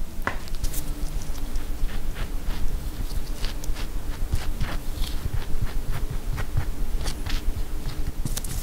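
Butter knife spreading butter across the top slice of a sandwich: irregular scraping, scratchy strokes over a low steady hum.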